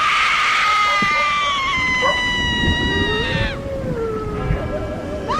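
A cat yowling: one long, high, drawn-out wail that starts suddenly and sinks slowly in pitch for about three and a half seconds. A fainter wavering yowl follows, and a new rising one begins near the end.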